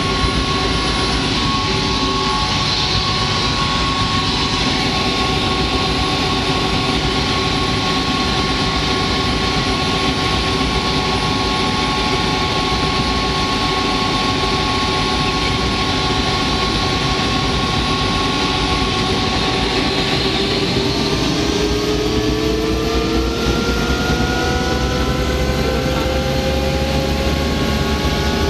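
Helicopter turbine engine and rotor running in flight: a steady drone with several whining tones, which slowly rise in pitch about twenty seconds in.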